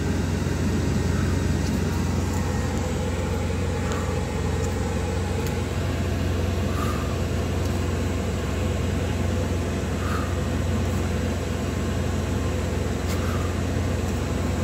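Steady low hum of an idling truck's engine, heard inside the sleeper cab, unchanging throughout. Faint short sounds come about every three seconds over it.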